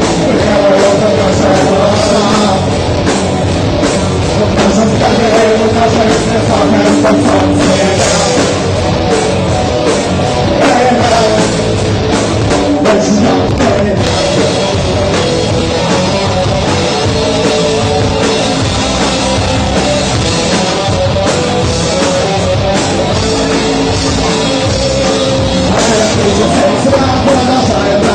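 Rock band playing live, with drum kit, loud and steady throughout.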